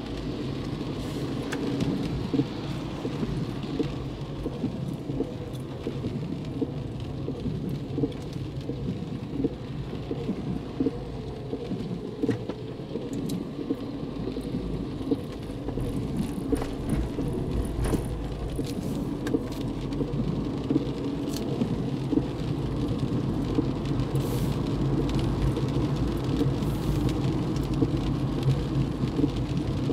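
Car driving through heavy rain, heard from inside: steady low road and engine rumble from the tyres on the wet road, with rain pattering on the car's body and windshield. It grows a little louder in the last third.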